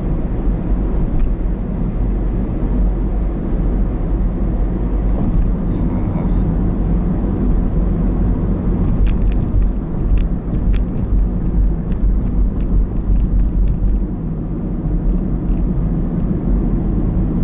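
Car interior noise while driving at road speed: a steady low rumble of engine and tyres on the road, heard from inside the cabin.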